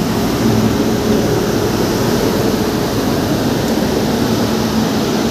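WAG9 electric locomotive standing with its cooling blowers and auxiliary machines running: a loud, steady rush of air with a low hum underneath.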